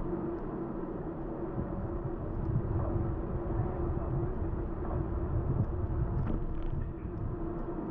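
Wind buffeting the microphone of a camera on a moving bicycle, an uneven low rumble, with a steady hum underneath.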